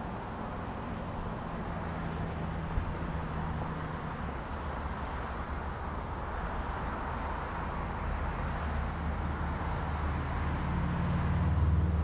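Road traffic noise: a steady rush with a low engine hum that slowly grows louder, loudest near the end.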